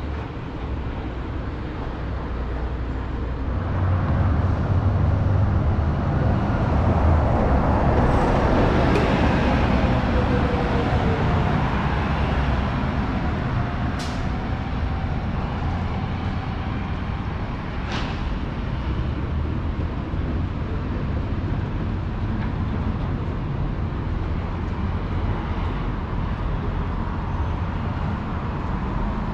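City street traffic: a steady rumble of passing vehicles that swells as a heavy vehicle goes by from about 4 to 11 seconds in. Two sharp clicks come about 14 and 18 seconds in.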